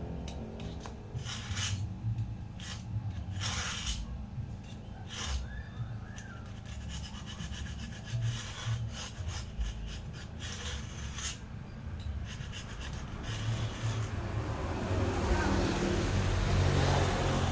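Hand rubbing or scraping on wood or laminate: separate strokes at first, then a louder, steadier stretch of scraping near the end, with a low rumble underneath.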